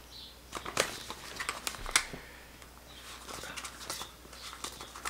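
Soft plastic hydration bladder being handled: crinkling plastic and scattered sharp clicks as it and its screw cap are worked in the hands, the loudest click about two seconds in.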